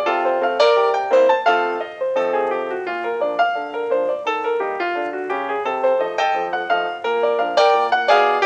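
Background piano music: a quick, steady run of single notes and chords.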